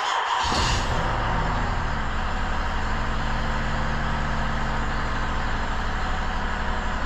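2007 Mazda 6's 3.0-litre V6 engine running steadily with cylinder 4's ignition coil boot lifted off its spark plug, so that cylinder is not firing.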